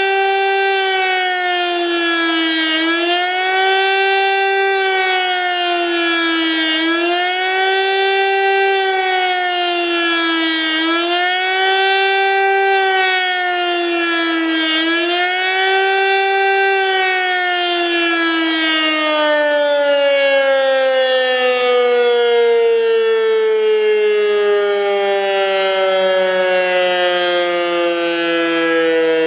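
Civil defence siren sounding the German public warning signal ("Warnung der Bevölkerung bei Gefahren"), its tone rising and falling about every four seconds. About two-thirds of the way through, the undulation stops and the siren winds down in one long falling tone.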